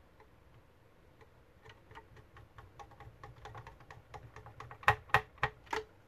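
Phillips screwdriver turning a screw into the plastic speaker housing: a run of small clicks that come faster and faster, then four louder clicks near the end.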